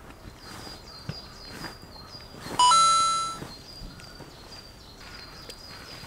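Faint high chirps repeating about three times a second. About two and a half seconds in, a loud, bright beep-like tone with many overtones starts suddenly and fades out within a second.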